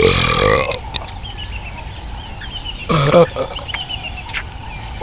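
Lion burping: two loud, deep belches, one lasting under a second at the start and a shorter one about three seconds in, each sweeping down in pitch.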